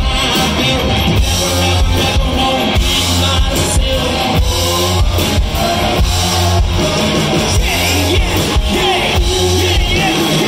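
Live rock band playing loud: drum kit and electric guitar, with a male singer singing into a microphone over them.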